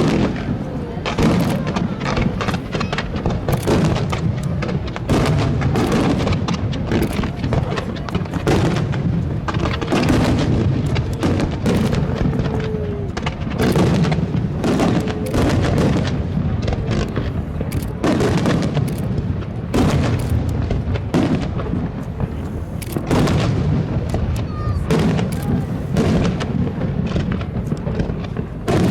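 Fireworks display: shells bursting in quick, irregular succession, several bangs a second over a continuous low rumble.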